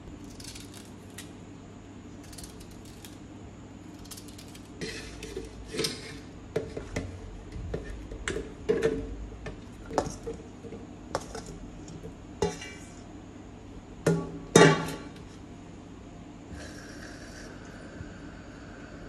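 Chunks of pineapple, cucumber and ginger clattering and knocking as they are tipped from a stainless steel bowl into a plastic blender jug, in a string of sharp knocks with the loudest about two-thirds of the way through. Near the end a tap runs steadily, filling the jug with water.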